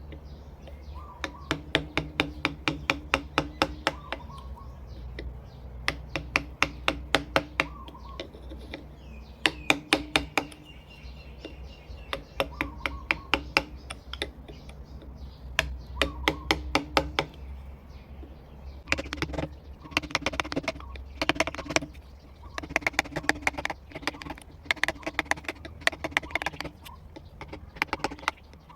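Rapid taps of a mallet driving a V chisel into wood, several strokes a second, in runs of a few seconds with short pauses between, over a steady low hum.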